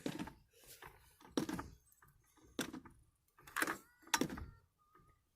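Car jack being pumped against a dented car roof to push it back out: a run of separate clanks and creaks about a second apart, with a short metallic squeak around the middle.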